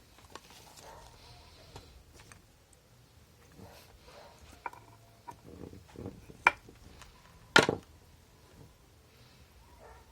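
Scattered light clicks and knocks of small objects being handled, with two louder sharp knocks in the second half.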